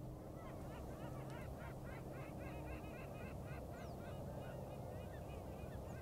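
A flock of waterfowl calling: many short, faint, rising-and-falling calls overlapping in quick succession, starting about half a second in.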